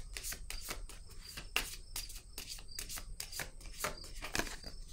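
A deck of tarot cards being shuffled by hand: a rapid, irregular run of short card flicks and clicks.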